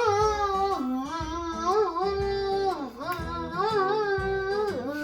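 Music: a melody of held notes that slide up and down, over a plucked-string accompaniment with a steady low pulse.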